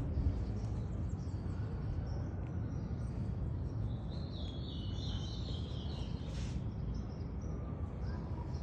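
A bird chirps for a couple of seconds about midway, over a steady low rumble of background noise.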